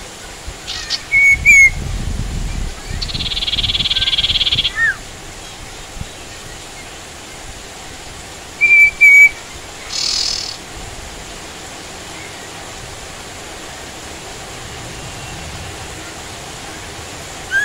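Common iora (sirtu) calling: short loud whistled notes about a second in and twice near nine seconds, a buzzy trill of about two seconds in between, and a short high burst around ten seconds, over a steady hiss of rain.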